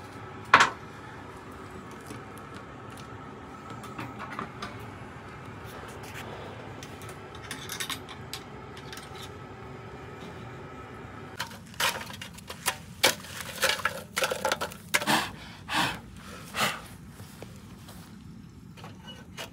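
Kitchen clatter: one sharp clink about half a second in, then a run of sharp metallic clinks and knocks as metal kitchenware, such as a wire grill basket, is handled. A steady low hum lies underneath.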